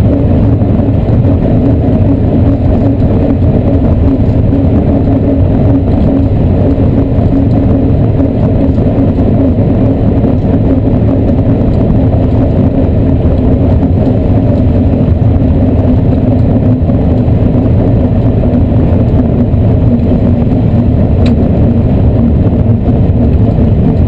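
Class 14 diesel-hydraulic locomotive running along the line, its engine giving a steady, deep drone as heard from inside the cab.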